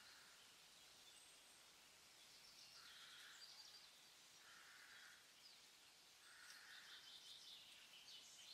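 Near silence: faint outdoor ambience with distant birds calling, a few faint chirps now and then.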